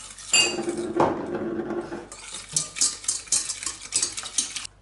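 A whisk beating eggs and sugar in a stainless steel pot: a ringing clink, then another knock, then fast whisking strokes against the pot, about four a second, that stop near the end.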